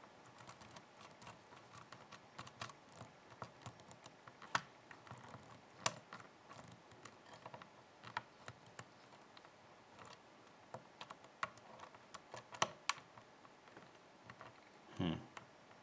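Lock pick working inside a pin-tumbler challenge lock: irregular small clicks and scrapes of the hook lifting individual pins under tension, with a few sharper clicks now and then.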